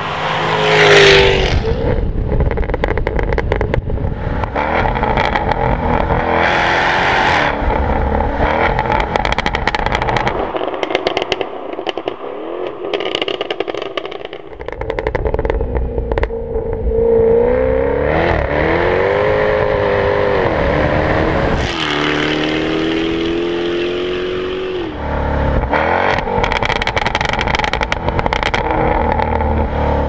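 Jaguar F-Type R Coupe's supercharged 5.0-litre V8 and its exhaust: it passes by about a second in, then pulls hard with the revs rising and dropping through gear changes. Sharp crackles and pops come from the exhaust as the revs fall off.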